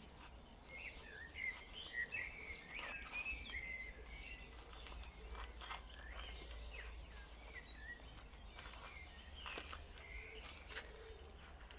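Small birds chirping and twittering in short warbling phrases, most busily in the first few seconds, with a few light taps and clicks among them over a low steady rumble.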